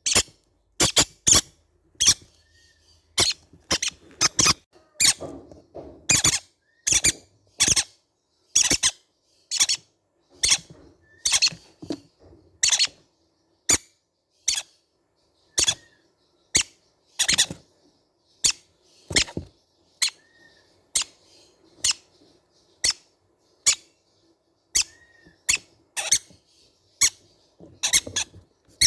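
Baby green-cheeked conures calling: short, shrill, squeaky chirps repeated about one or two a second, with irregular gaps.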